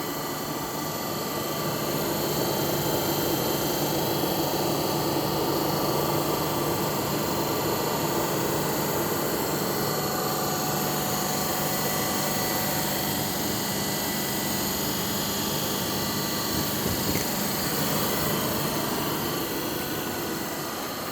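Motorhome propane furnace running on a test bench: its blower fan and burner give a steady whooshing hum with faint steady tones. It gets slightly louder over the first couple of seconds, then holds even.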